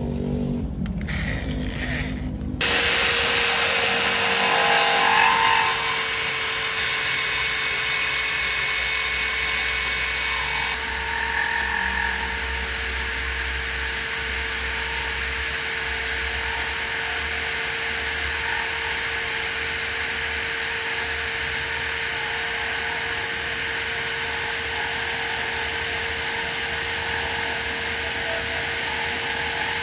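Electric power drill running at a steady speed with a constant whine. It comes in loud about two and a half seconds in, after a quieter, broken sound.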